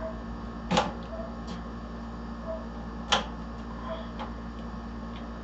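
Two sharp plastic clicks about two seconds apart, with a few lighter ticks between them, as a RAM stick is pressed into a motherboard DIMM slot and its retention clip snaps into place.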